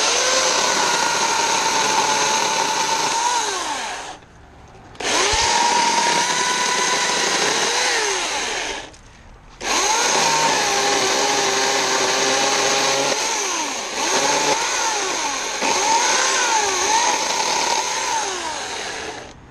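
Portland 14-inch 9-amp electric chainsaw running and cutting through tree limbs, its whine dipping and recovering as the chain bites into the wood. It runs in three bursts, with two short stops at about four and nine seconds in.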